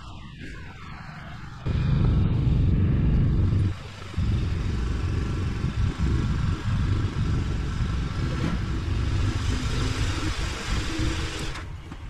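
Motorcycle on the move: engine running under a loud, uneven rush of riding noise. The sound jumps up suddenly about two seconds in and drops out briefly near four seconds.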